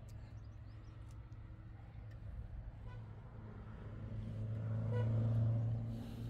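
A motor vehicle's engine running with a low, steady hum that grows louder to a peak about five seconds in and then eases off.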